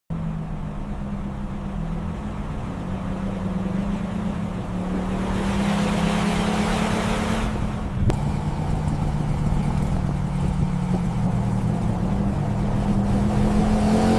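Motor vehicle engine running steadily, starting abruptly, with its loudness creeping up and a hiss swelling for a few seconds in the middle; a single short click about eight seconds in.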